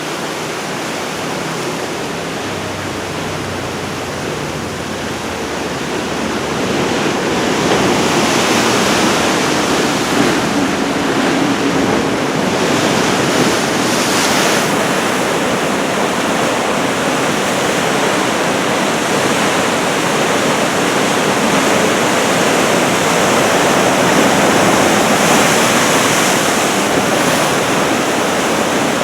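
Heavy storm surf crashing and roaring continuously onto the shore, breaking waves surging louder every few seconds, with wind buffeting the microphone.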